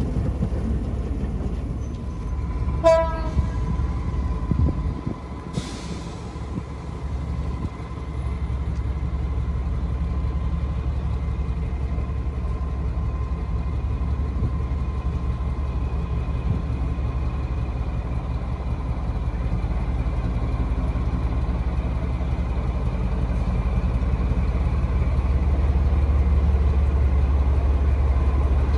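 Class 14 diesel-hydraulic locomotive D9531's Paxman engine running with a deep, steady rumble as the loco approaches, growing louder near the end. A short horn toot sounds about three seconds in.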